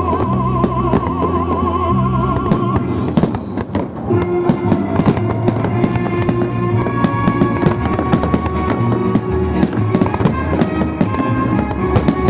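Fireworks going off, a rapid run of sharp bangs and crackles, with music playing throughout.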